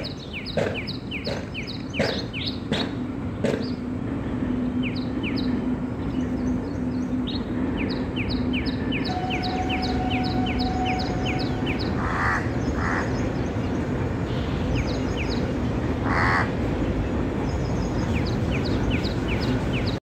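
House crows giving a few harsh caws, two about twelve seconds in and one near sixteen, over a constant rapid twittering of small birds' short high chirps. A few sharp taps in the first few seconds and a low steady hum through the middle.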